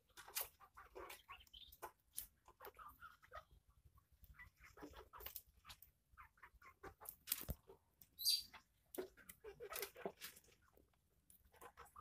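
Quiet, irregular scrapes and clicks of a small knife carving a wooden slingshot handle.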